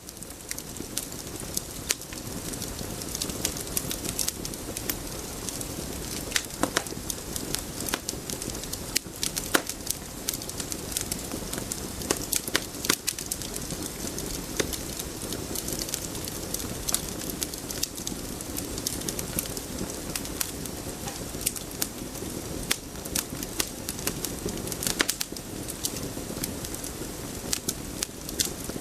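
A steady noisy ambience with frequent sharp crackles and clicks throughout, fading in over the first second.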